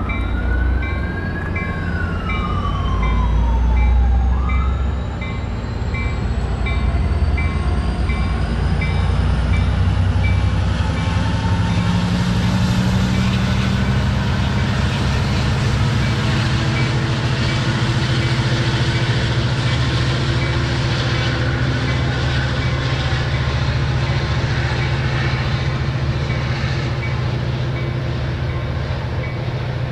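Metrolink commuter train's diesel locomotive pulling in, its engine rumbling loudest about four seconds in, with a bell dinging about twice a second and a single tone sliding down in pitch early on. The rumble gives way to a steady noise of wheels rolling on the rails as the train runs along the platform.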